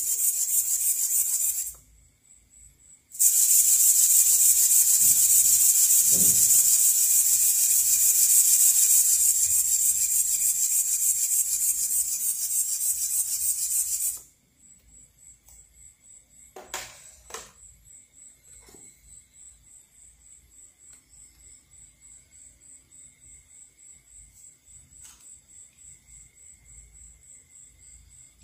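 Two Emax ES08MA micro servos flapping a pair of ornithopter wings fast: a loud rasping buzz that breaks off for about a second near the start, runs again and stops about halfway through. After it stops, only a faint even ticking and a couple of clicks remain.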